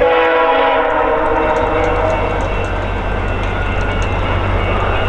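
Diesel locomotive horn sounding a held chord that starts abruptly and fades over the next few seconds, over the steady low rumble of a locomotive engine.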